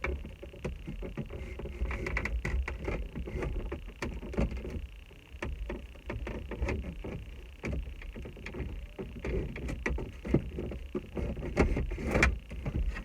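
Irregular clicks, knocks and rattles of hands and tools working on car dashboard parts, over a low rumble.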